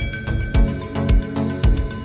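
Background music with a steady beat, about two low thumps a second.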